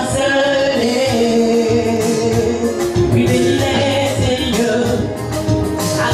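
Gospel music: voices singing long held notes over instrumental backing with percussion.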